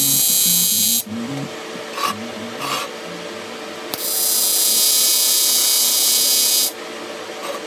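A TIG welding arc on aluminium sheet, a steady buzzing hiss, burns for about the first second, stops, then strikes again about four seconds in and runs for nearly three seconds. Background music plays underneath.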